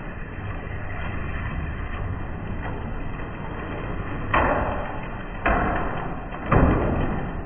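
Slot cars running on the track: a steady hum of their small electric motors and guides in the slots, with three sudden loud rushes about a second apart in the second half.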